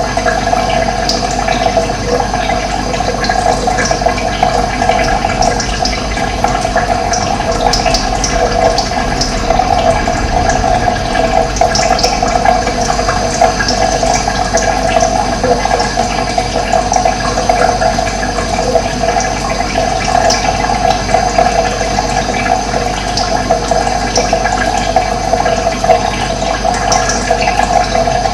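Flowing water rushing steadily, with small birds chirping briefly and often over it.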